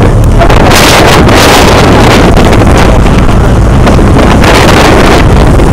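Loud wind buffeting the microphone in rough open water, with stronger gusts about a second in and again near the end, over a low steady rumble.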